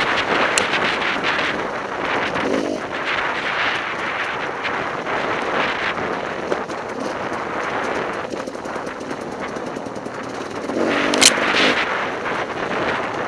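Enduro motorcycle engine heard from on board as it rides a trail: a rapid, uneven stream of firing pops, with the engine note rising briefly about two and a half seconds in and again near eleven seconds, where a sharp knock is the loudest moment.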